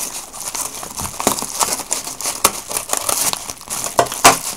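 Scissors cutting along the side of a padded paper mailer, with the paper and plastic packaging crinkling and crackling in irregular snaps as it is cut and pulled open; a sharp click near the end.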